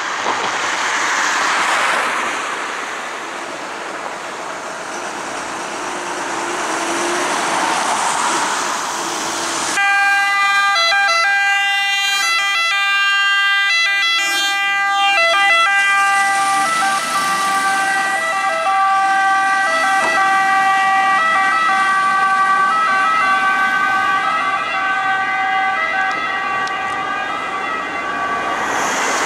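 Italian fire engine's two-tone siren, coming on about a third of the way in and stepping between two pitches for the rest of the time. Before it, a rushing noise swells and fades twice.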